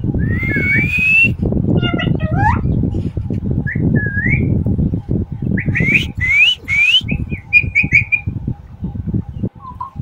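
A pet parrot whistling: a string of short whistles that each glide upward, with one longer rising whistle near the start and a quick run of them about six to seven seconds in.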